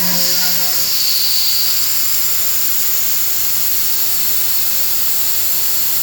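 CNC milling machine running with a steady high-pitched hiss and whine from its high-speed spindle. A lower humming tone fades out within the first second.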